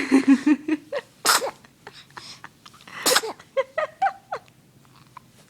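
A 5½-week-old baby girl sneezing: two sharp sneezes about two seconds apart.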